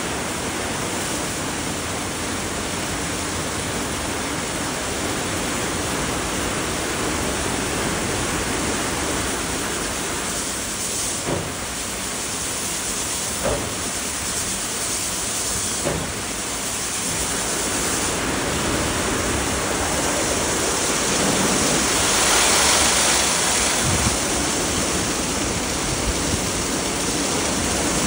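Automatic gantry car wash at work: high-pressure water jets spray the car's sills and lower body and water streams off onto the wash-bay floor, making a steady rushing hiss. A few short knocks come in the middle, and the spray grows louder about two-thirds of the way through.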